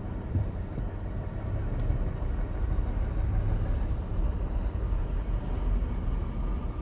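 Low, steady rumble of engines and road noise heard from inside a car's cabin while it drives slowly behind a heavy tow truck.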